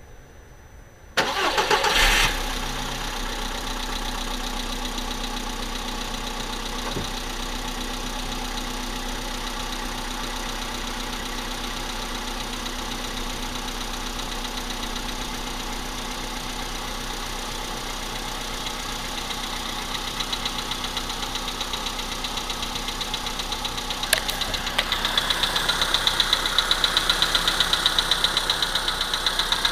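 VW engine cold-started, catching about a second in after brief cranking, then idling. From about twenty seconds in a regular knocking rises over the idle and grows louder: the cold-engine knock that was traced to the pistons and hydraulic lifters, which were replaced under warranty.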